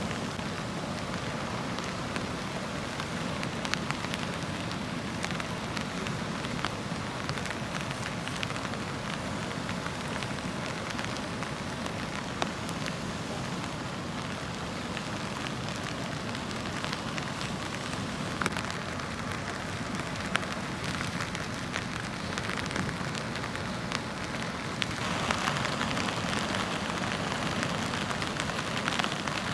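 Surf washing onto a beach with wind, a steady rushing hiss with small crackles; it grows a little louder near the end.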